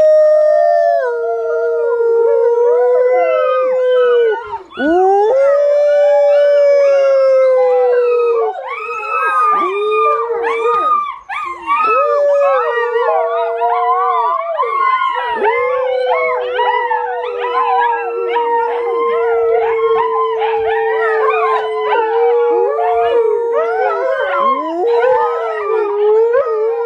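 Volga Wolfhound howling: long, steady howls held on one pitch with a brief dip between them. From about eight seconds in, several more dogs join with higher, wavering howls that overlap into a chorus.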